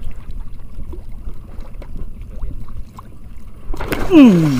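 Water sloshing and splashing around a small fishing boat's hull as a hooked fish is brought up and lifted aboard, over a low rumble with small knocks. Near the end a loud call slides down in pitch.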